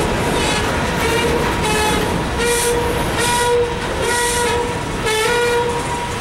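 Empty steel coal hopper cars rolling past on the rails. The wheels rumble and clack, with a steady high-pitched squeal or ring and a bright metallic ringing that comes back about every half second or so.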